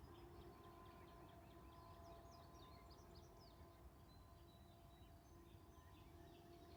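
Faint small birds chirping and twittering in quick, high notes throughout, over a faint steady hum.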